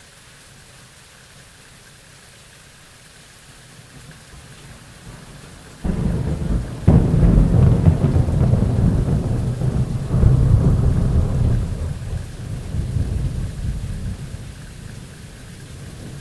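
Thunderstorm with steady rain: a low rumble builds, then about six seconds in thunder cracks sharply, a second louder crack follows a second later, and long rolling thunder rumbles for several seconds before slowly fading under the rain.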